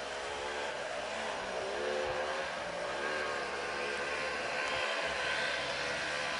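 Rokon two-wheel-drive motorcycle's engine running steadily, its pitch wavering up and down as the throttle changes.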